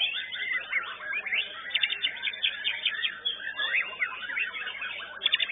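White-rumped shama (murai batu) singing a fast, varied contest song of whistled slides and sharp chattering notes, with a dense run of rapid notes near the end.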